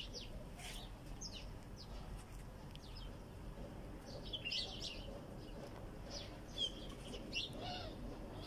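Small birds chirping: short, high calls scattered throughout, thickest about halfway through, over a faint low background noise.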